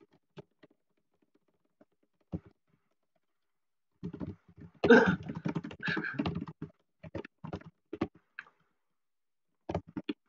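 Computer keyboard typing: scattered single keystrokes, a dense, louder run of fast typing a few seconds in, then a few more keys near the end.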